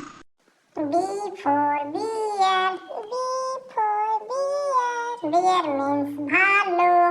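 A child singing a short tune in a high voice, a run of held notes stepping up and down, starting just under a second in after a brief silence.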